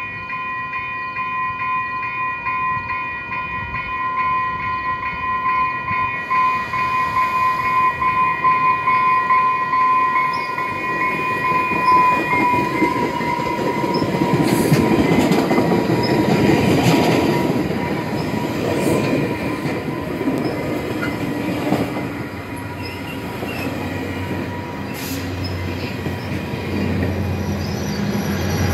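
Exo commuter train with double-deck coaches passing close by. For the first dozen seconds a steady high tone with overtones sounds and then fades. After that come the rumble and clatter of the coaches' wheels on the rails, with sharp clicks as the wheels cross rail joints.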